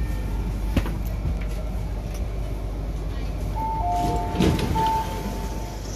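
MTR K-Train electric multiple unit stopped at a platform, its low running hum steady, then about three and a half seconds in a two-note electronic door chime sounds for about two seconds and the saloon doors slide open with a thud.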